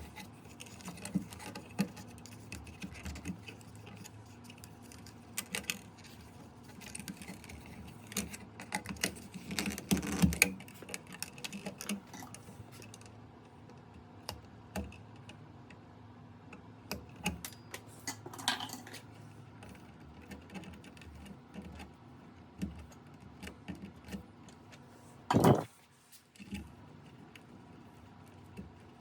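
Small metallic clicks and clinks of hand tools and wire being worked at an electrical box, with a flurry of clatter about ten seconds in and one sharp, loud knock near the end.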